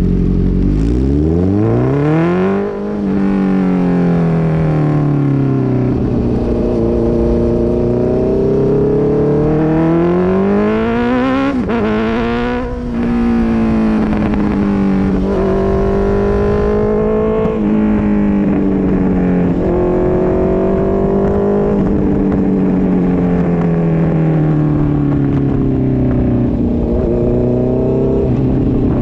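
Honda CB650F inline-four engine running through a straight-through Mivv MK3 full exhaust with no catalytic converter, its revs climbing and falling again and again. There is a steep climb in the first couple of seconds and another around twelve seconds in, then a string of shorter rises, each followed by a slower fall.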